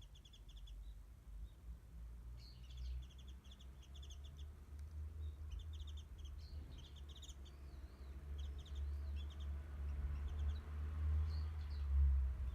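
Japanese white-eyes calling: short, quick runs of high chirps repeated every second or so, with a thin twittering phrase in the middle. Underneath is a low rumble that grows louder toward the end.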